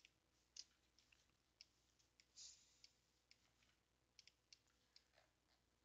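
Faint computer mouse clicks, about a dozen scattered sharp ticks, against near silence.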